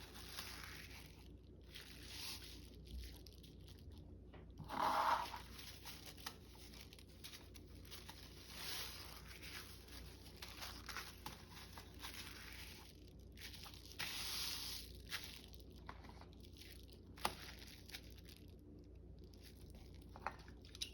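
Sheets of paper being handled, rustling and sliding as they are folded and sorted, with a couple of light clicks near the end.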